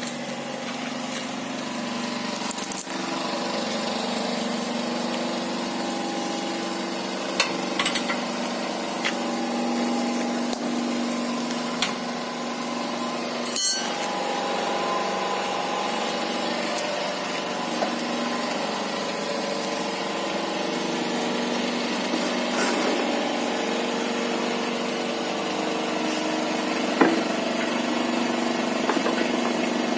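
A homemade motor-driven machine running steadily, its drive humming with slowly shifting tones, with occasional sharp clicks and knocks.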